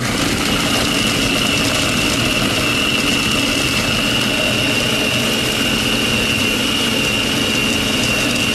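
Electric food processor running steadily at speed, its blade mincing raw chicken chunks in a plastic bowl: a loud, even motor whir with a steady high whine on top.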